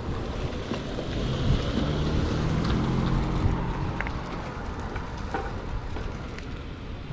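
Wind rumbling steadily on the microphone, with the low sound of car traffic running underneath.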